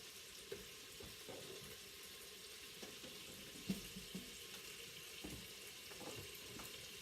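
Cubed chicken faintly sizzling in olive oil in an electric pressure cooker on its browning/searing setting, with a few small pops scattered through.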